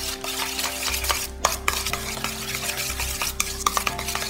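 Chopsticks stirring minced pork and celery wonton filling in a stainless steel bowl: a continuous wet churning with frequent irregular clicks of the sticks against the metal.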